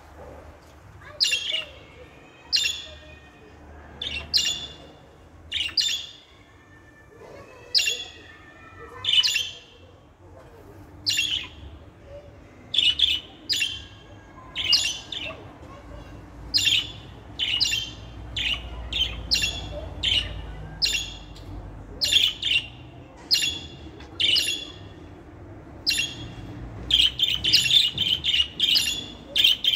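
Budgerigar calls: short, sharp chirps repeated about once a second, coming faster in the second half and running together into a quick string of chirps near the end.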